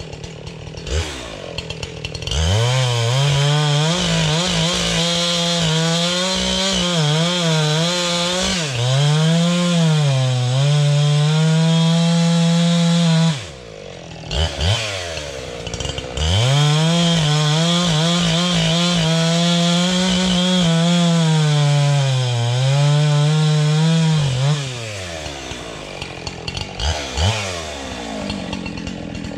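Husqvarna 372XP two-stroke chainsaw bucking logs. It idles, goes to full throttle and cuts for about ten seconds, its note dipping each time the chain bites into the wood. It drops back to idle with a few throttle blips, makes a second long cut, and returns to idle with short blips near the end.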